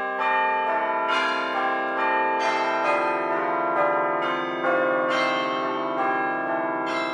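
Bell-like music: overlapping sustained chime notes, a new note struck about every second and left ringing.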